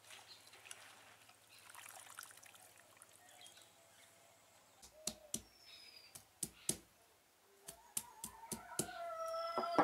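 Hands swishing chopped spinach in water in a steel bowl, faintly. Then a stone grinding roller strikes a wooden board about a dozen times, in sharp knocks. Near the end a rooster starts to crow, and that is the loudest sound.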